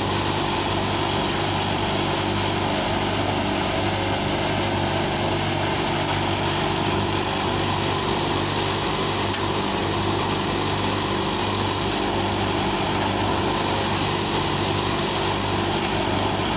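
Al-Ghazi Dabang 85 tractor running steadily while driving a gram (chickpea) thresher under load: a constant engine hum with the thresher's high whir over it.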